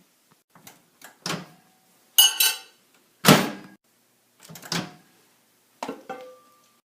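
A series of door knocks and clicks, about seven in all, the loudest a little over three seconds in, with a short steady tone near the end.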